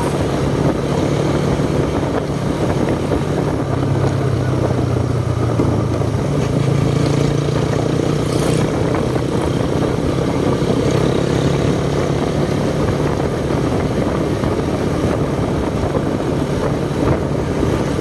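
Motorcycle engine running steadily at cruising speed, with wind and road noise on the mounted microphone.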